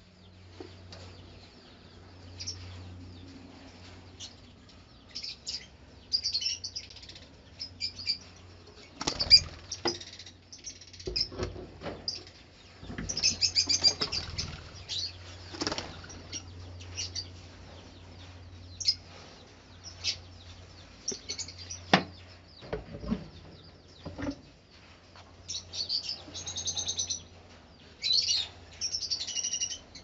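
Lovebirds in an aviary chirping in short flurries several times, with wings flapping and scattered knocks and rattles from the nest boxes being handled. A faint low steady hum runs underneath.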